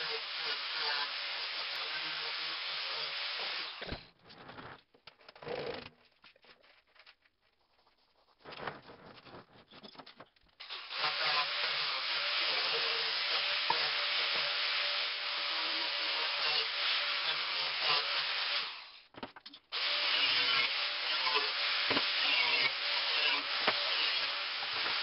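Angle grinder stripping paint from the steel shell of a well-water pressure tank: a steady grinding rush over the motor's even tone. It stops about four seconds in, runs again from about ten seconds, and breaks off briefly about three-quarters of the way through.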